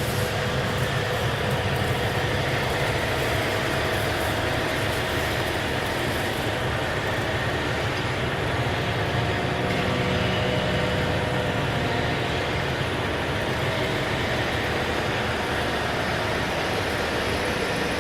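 Steady machine running noise, an even rumble with a few faint constant tones and no change in level.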